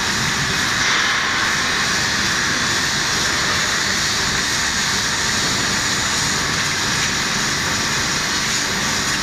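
Steady hiss of a high-pressure water jet spraying onto steel tubes.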